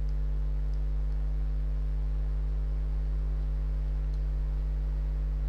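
Steady low electrical mains hum with a stack of evenly spaced overtones, holding level throughout, picked up by the recording setup.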